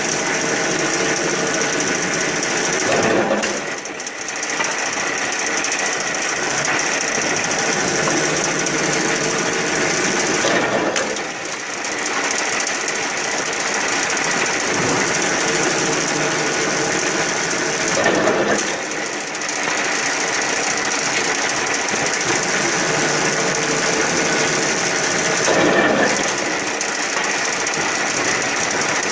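A small-diameter spindleless log core veneer peeling machine running steadily, a dense rattling machine noise, with a brief surge and dip about every seven to eight seconds.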